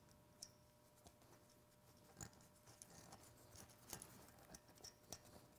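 Near silence, with a few faint metallic clicks scattered through it as washers and nuts are fitted by hand onto the diesel injection pump's mounting studs.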